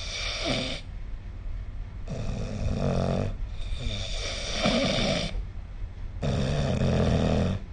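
A sleeping person snoring: a run of snores, each about one to one and a half seconds long, with short pauses between them, over a steady low hum.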